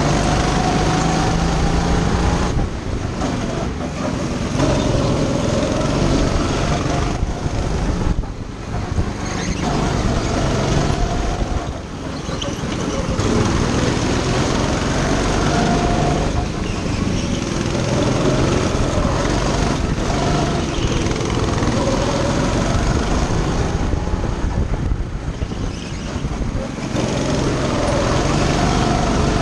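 Go-kart engine heard from the driver's seat, running hard with its pitch climbing and falling. It drops off several times as the throttle is lifted for the corners, then picks up again.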